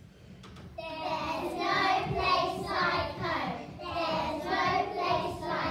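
A group of young children singing together, starting about a second in.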